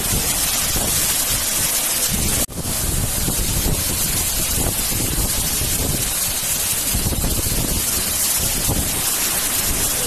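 Waterfall plunging onto rocks close by: a loud, steady rush of falling and churning water. It cuts out for an instant about two and a half seconds in.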